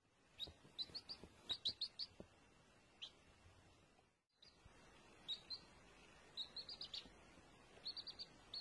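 Baby chicks peeping: quick runs of short, high cheeps with brief pauses between them. The sound cuts out for a moment about four seconds in.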